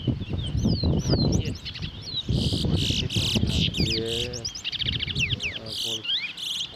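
Towa-towa seed finches singing in competition: quick high whistled phrases and fast buzzy trills, more than one bird overlapping, with people's voices murmuring underneath.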